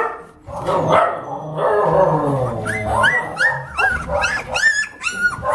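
Young puppies, about three weeks old, whimpering, then giving a quick run of about seven short, high yelping cries in the second half, each rising then falling in pitch.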